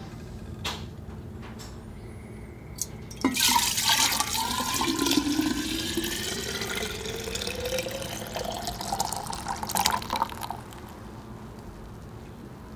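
Liquid poured in a steady stream into a large glass mason jar, starting about three seconds in; the filling note climbs steadily in pitch as the jar fills, and the pour stops about two seconds before the end.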